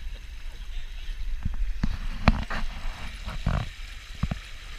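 Water rushing and slapping against the hulls of a Dart 18 catamaran under sail, over a steady low rumble of wind on the microphone. A few sharp knocks and splashes break through, the loudest a little past halfway.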